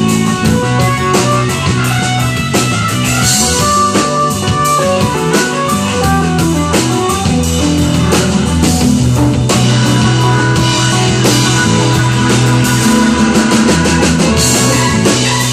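Live instrumental rock: electric guitar, electric bass, drum kit and electric keyboard playing together with a steady beat.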